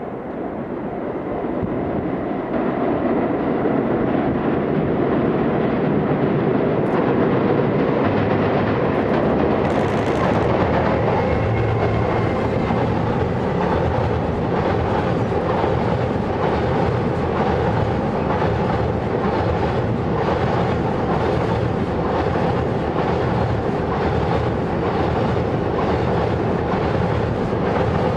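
Container freight train behind an EF210 electric locomotive crossing a railway bridge: wheels clattering over the rail joints in a fast, steady clickety-clack over a heavy rumble. The sound swells over the first few seconds as the train reaches the bridge, then holds as the long string of container wagons runs past.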